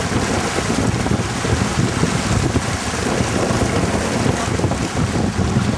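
Wind buffeting the microphone over the rush of water along a Duncanson 18 sailing yacht's hull as it sails through waves. The low gusting rumble is steady throughout.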